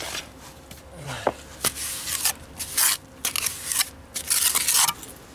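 A trowel scraping and smoothing wet cement mortar into holes in a stone foundation wall, in about half a dozen short strokes with a sharp tap about a second and a half in.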